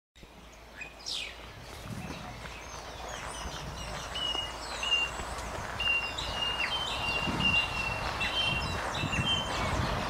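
Forest ambience fading in: many birds calling over a steady background hiss, with a falling whistle about a second in and short, repeated high whistled notes after it.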